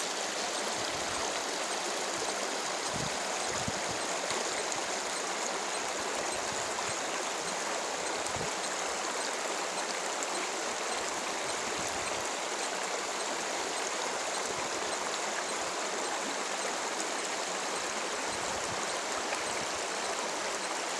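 Forest brook running into a pond: a steady rush and burble of flowing water.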